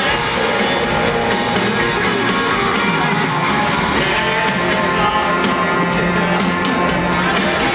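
Live country band with guitars playing a song over a stadium sound system, with a man singing, heard from among the crowd.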